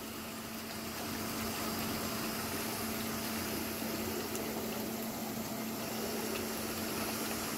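A Lepono hydromassage motor pump running with a steady hum while the tub's jets churn and bubble the water, air drawn in through the open aerator. The sound grows slightly louder about a second in. The pump itself is very quiet.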